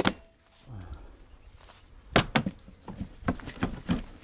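A series of sharp, irregular knocks and clacks, a few at the start and a quick run of about eight in the second half, like wood or hard objects being struck or handled.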